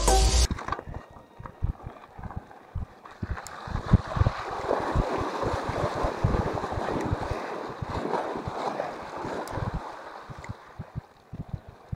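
Wind buffeting the microphone in irregular low thumps over a steady rushing noise. Background music cuts off about half a second in.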